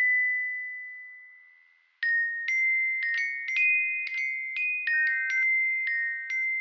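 High, bell-like metallic chime notes as music. A single note rings and fades away over about two seconds, then a run of struck notes follows, about two a second, ringing over one another.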